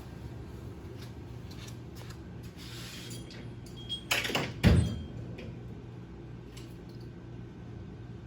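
Hand tools clinking and knocking against a motorcycle engine, with a louder metallic clatter and thump a little past four seconds in, over a steady low hum.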